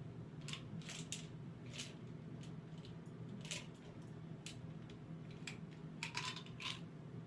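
Pills rattling in a small plastic pill bottle as it is shaken and tipped up, a series of short rattles and clicks with a cluster near the end. A low steady hum runs underneath.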